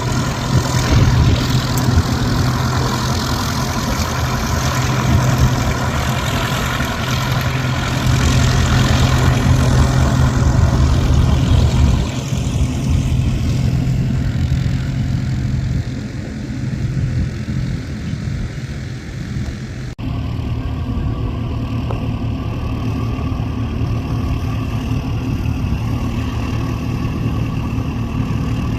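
An engine running steadily with a low, even hum. It grows quieter about twelve seconds in and there is an abrupt break near twenty seconds, after which it goes on.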